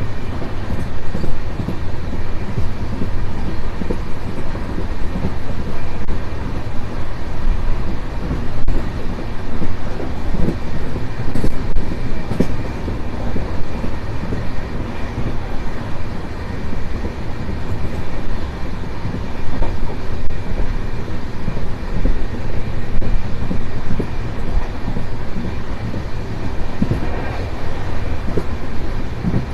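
Indian Railways express train running at speed, heard from an open coach door: a steady wheel-on-rail rumble with scattered knocks from the track.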